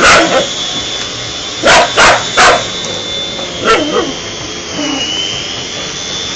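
A dog barking at a running vacuum cleaner: loud sharp barks come one at the start, three in quick succession near the two-second mark and two more around four seconds, over the vacuum's steady hiss and high whine, which dips briefly about five seconds in.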